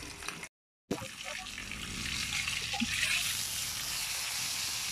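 Maya-maya (red snapper) fish steak sizzling as it shallow-fries in hot oil, a steady frying hiss that grows louder a little past halfway. A brief dead gap about half a second in.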